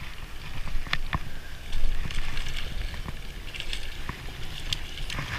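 A hooked bass thrashing and splashing at the water's surface as it is reeled in on a spinning reel, with a few sharp clicks about a second in, over a steady low rumble of wind on the microphone.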